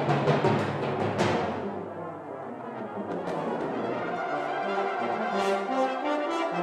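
Brass band playing: a loud full passage with sharp struck accents, falling back about two seconds in to softer held chords, with new entries coming in later.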